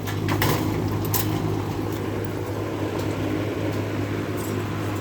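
Vintage Kellair box fan running at speed: a steady motor hum under rushing air. A couple of sharp clicks come in the first second or so, as loose shards of its brittle plastic grill are blown about in the case.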